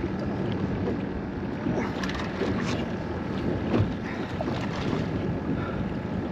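Wind buffeting the microphone over water lapping against a small boat's hull, with a brief knock about four seconds in.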